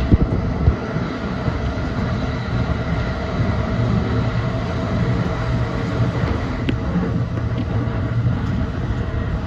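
E235-1000 series electric train running along the line: a steady rumble of wheels on rail with a faint high tone held throughout, and two sharp knocks in the first second.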